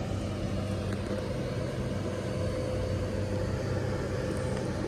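LNER Class 801 Azuma electric train standing at the platform, its onboard equipment giving a steady low hum with a faint higher-pitched tone over it.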